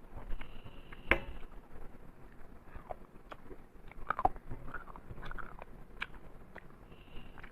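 Close-up eating sounds of a person chewing and biting into rice and mutton curry: wet mouth smacks and scattered soft clicks, with one sharper click about a second in.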